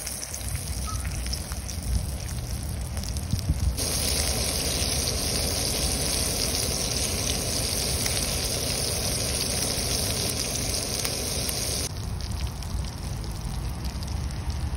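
Hot oil sizzling in a frying pan as sunfish and then bullfrog legs fry. The sizzle turns louder and brighter about four seconds in and drops back near the end, over a steady low rumble.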